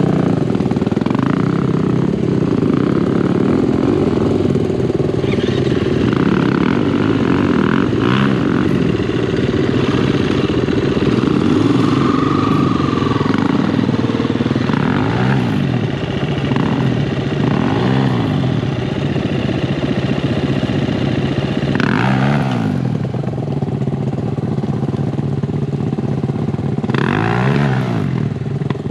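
Dirt bike engine running hard on a motocross track, its pitch climbing and dropping again and again as the rider works the throttle and shifts gears.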